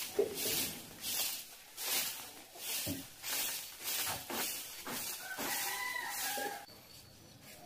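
A short-handled broom sweeping a bare dirt yard, rhythmic scratchy strokes about two a second that stop near the end. Toward the end an animal calls in the background, a drawn-out call lasting about a second and a half.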